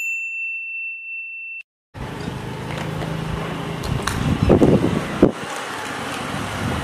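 A steady high-pitched electronic beep about a second and a half long, a sound effect over a title card, cuts off into silence. Then open-air background noise follows, with a low hum and a couple of sharp knocks.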